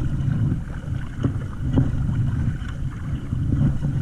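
Wind buffeting the microphone as a steady low rumble, with a few light knocks spaced through it.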